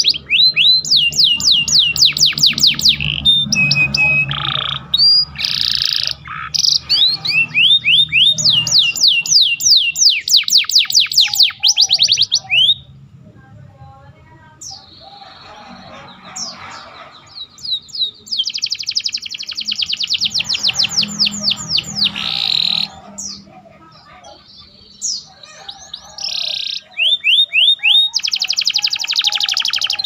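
Domestic canary singing long, fast trills of high, downward-sweeping notes, its song filled with bar-winged prinia (ciblek) phrases. The song drops to softer notes for a few seconds about halfway through and again later, then resumes at full strength.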